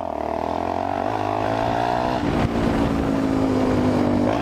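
Motorcycle with a modified aftermarket exhaust running at low road speed. Its engine note holds fairly steady, dipping briefly about two seconds in.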